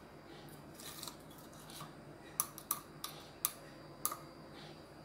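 A few faint scrapes, then about five light, sharp clicks in the second half, from a small kitchen utensil being handled while ginger garlic paste is added to mashed potato.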